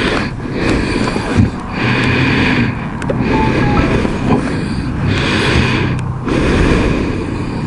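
Kymco Xciting 500 maxi-scooter engine running under way, its hum swelling and easing a few times, over a steady rush of wind noise.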